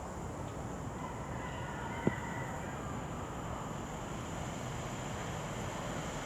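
Class 730 electric multiple unit approaching in the distance, heard as a faint steady rumble with a faint high tone about a second in, and one sharp click about two seconds in.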